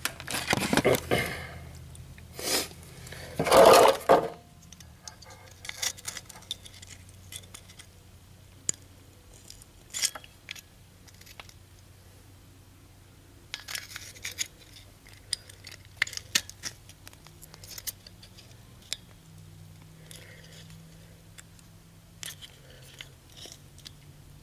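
Scattered small clicks and rattles of a turn-signal bulb and its plastic socket being handled and fitted together, with a few louder scrapes in the first four seconds.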